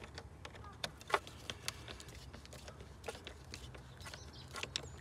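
Scattered small metallic clicks as a Torx bit screwdriver turns and seats the screw holding a new throttle position sensor to the throttle body, over a low steady hum.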